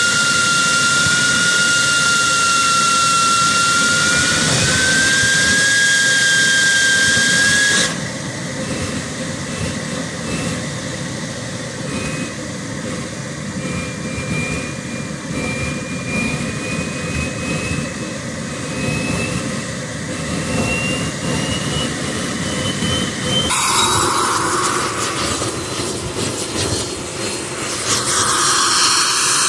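Homemade turbojet built from a car turbocharger starting up: an air hose blows into the compressor with a loud hiss and a steady high whine that cuts off suddenly about eight seconds in. The turbo's own whine then climbs slowly in pitch as the engine runs on its combustion, with a louder rushing noise coming in about 23 seconds in and again near the end.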